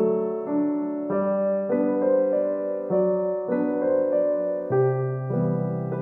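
Background piano music: slow, gentle notes and chords, with a new one about every half second to a second.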